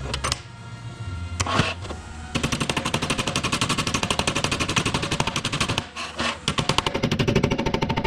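A power tool hammering metal rapidly, many blows a second, starting a couple of seconds in and breaking off briefly about six seconds in before starting again.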